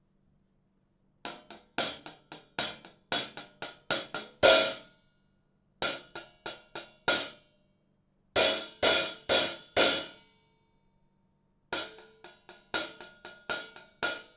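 Handmade B-20 bronze cymbals struck in four quick runs of short, sharp hits, each hit dying away almost at once, with brief silences between the runs. The loudest hit comes about four and a half seconds in.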